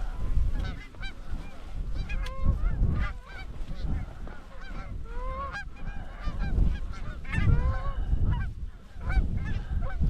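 Flock of Canada geese honking, many short overlapping honks, over a low rumble of strong wind on the microphone.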